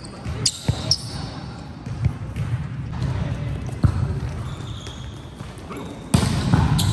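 Indoor volleyball being played in an echoing gym: sharp slaps of hands and arms striking the ball, a few short sneaker squeaks on the court early on, and players' voices, louder near the end.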